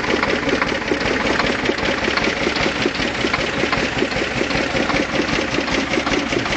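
Engine of a homemade small tractor running steadily, with an even, rapid beat.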